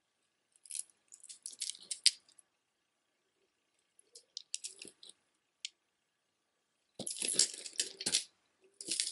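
Stone and glass beads and metal chain of a necklace clicking and rattling against each other as it is handled, in several short clusters. The loudest and fullest rattle comes about seven seconds in and lasts about a second.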